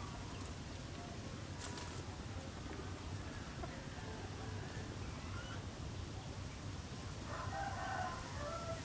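A rooster crows once, about a second long, near the end, over a steady low rumble of background noise.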